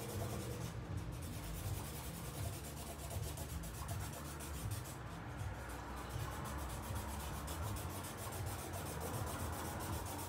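Felt-tip marker rubbing across paper as someone draws.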